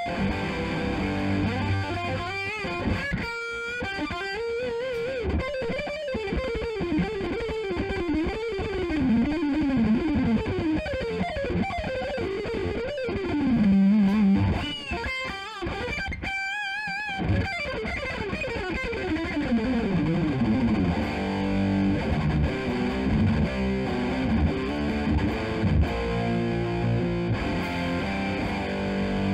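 Distorted electric guitar played through a tube amp and picked up by the Focusrite Scarlett's bundled condenser microphone in front of the speaker. It plays fast descending lead runs, then a held note with wide vibrato about halfway through, then low rhythm riffing.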